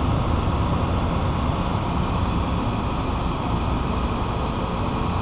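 Backhoe's diesel engine running steadily while it digs.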